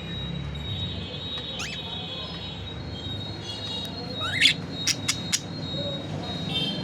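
Budgerigar chirping: a short rising chirp about a second and a half in, and a louder rising chirp about four seconds in, over faint high, steady whistle-like notes. Three sharp clicks follow the louder chirp, over a low steady hum.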